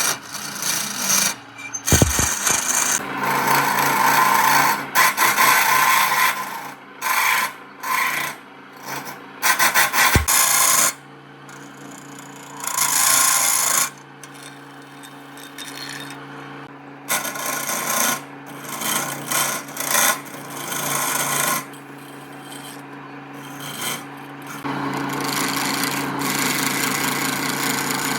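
Tools working wood: irregular rasping and scraping strokes of varying length, with two sharp knocks. A steady hum runs underneath, and the sound turns into a more continuous scraping near the end.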